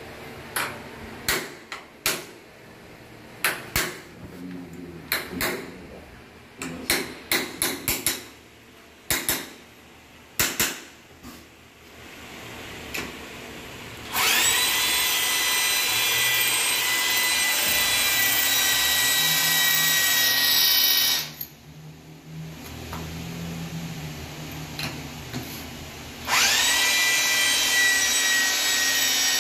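Cordless drill running steadily as it bores into a wooden sill, in two runs: one of about seven seconds starting halfway through, then after a short pause another from near the end. Before the drilling, a scatter of sharp knocks and taps.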